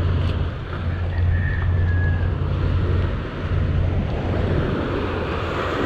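Wind buffeting the microphone over small waves washing onto a pebbly shore, with a steady low hum underneath.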